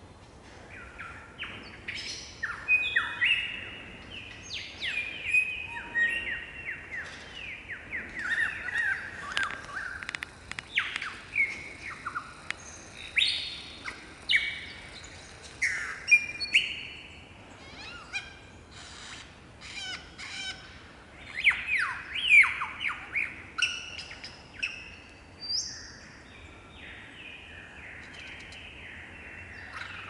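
Lyrebird singing a varied song: rapid runs of whistled notes that sweep downward, in phrases broken by short pauses, with a quieter stretch near the end.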